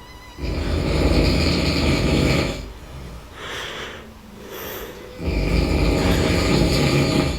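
A man snoring loudly: two long, rasping snores about five seconds apart, with quieter breaths between them.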